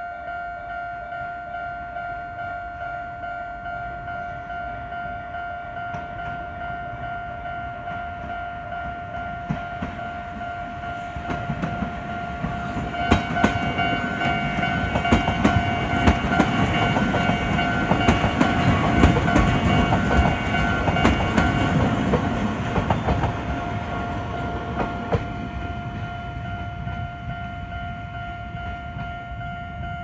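Japanese level-crossing warning alarm sounding a steady electronic tone, while a Chichibu Railway electric train passes over the crossing. The train's rumble builds from about ten seconds in, with wheels clacking over rail joints, and is loudest past the middle before fading away. The alarm keeps sounding throughout.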